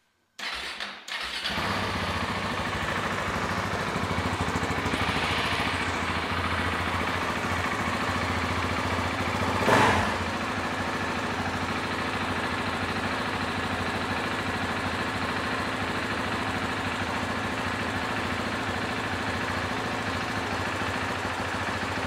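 KTM 690 SMC R's single-cylinder engine cranked on the electric starter, catching within about a second, then idling steadily from cold at around 1,600 rpm. About ten seconds in there is one brief, louder sharp sound over the idle.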